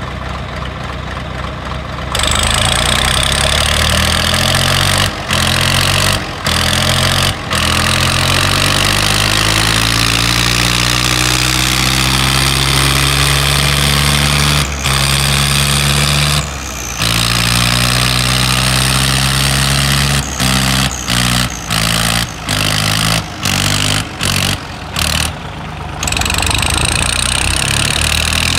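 Diesel tractor engines idling, then opened up hard and straining under load as two tractors pull against each other in a tug-of-war, the engine note climbing slowly. The sound drops out briefly several times.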